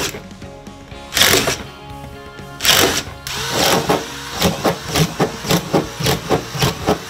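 A cordless drill with a 5/8-inch paddle bit boring holes in a plastic garbage can, in two short runs of about half a second each, one about a second in and one near three seconds. Background music with a steady beat plays throughout.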